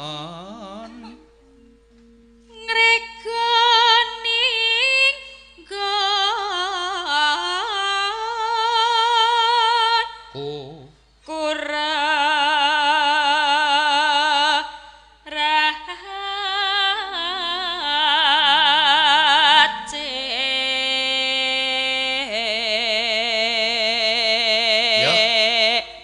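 Javanese gamelan-style singing: long held sung phrases with wide vibrato, separated by a few short breaths. Steady sustained tones lie under the voice.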